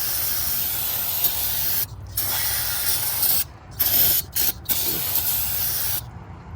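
Aerosol brake cleaner spraying onto a brake rotor: a steady hiss broken by four short pauses, stopping about six seconds in.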